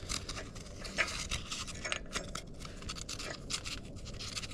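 Irregular light metallic clicks and scrapes from front axle hub parts being handled and turned loose by hand.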